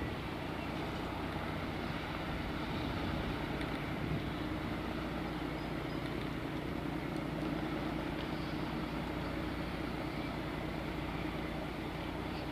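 Police launch's engine running steadily as the boat motors past, a constant drone with a low hum.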